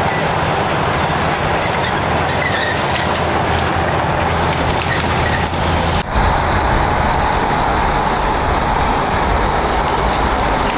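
Caterpillar D7 and D8 bulldozers at work clearing scrub with an anchor chain: diesel engines running under load over a steady metallic clatter of steel tracks and chain. About six seconds in the sound drops out for an instant and the low engine note changes.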